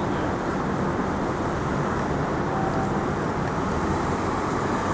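Steady city street traffic noise: an even low rumble with no distinct events.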